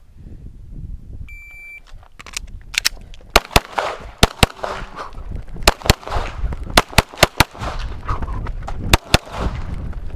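An electronic shot timer gives one short beep as the start signal. About a second later a Glock pistol fires a string of shots, mostly in quick pairs (double taps), until near the end.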